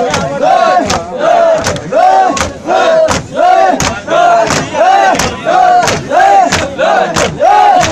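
A crowd of men chanting a short call in unison, over and over at about one and a half calls a second, with a sharp hand-on-chest slap on each beat: Shia mourners performing matam, rhythmic chest-beating with chanting.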